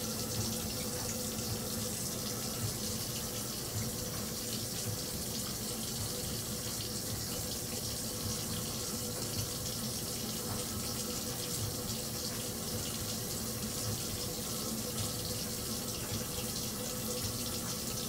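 Bathroom sink tap running in a steady stream, with a faint steady hum underneath and a few brief louder splashes.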